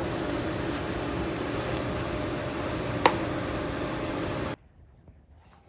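Steady mechanical hum and hiss, with a single sharp click about three seconds in; it cuts off abruptly near the end.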